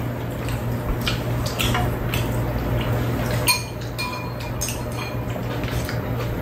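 Metal spoons clinking against bowls and a pan during a meal: several light clinks, the loudest a ringing clink about three and a half seconds in. A steady low hum runs beneath.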